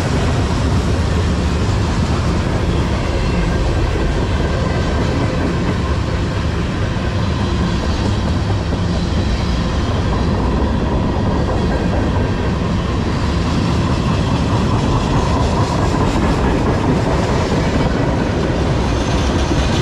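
Freight cars of a CSX manifest train (tank cars, boxcars and covered hoppers) rolling past: a steady rumble of steel wheels on rails with clickety-clack from the trucks.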